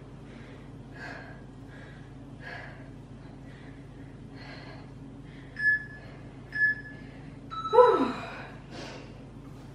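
A woman breathing hard in quick puffs during fast bodyweight squats. Two short beeps come a little past halfway, and near the end she lets out a loud groan that falls in pitch.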